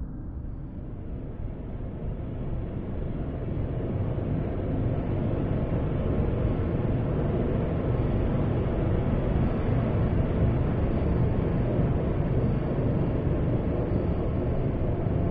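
Noise-music improvisation: a dense low rumbling noise that swells over the first few seconds and then holds steady, with a faint thin high tone above it.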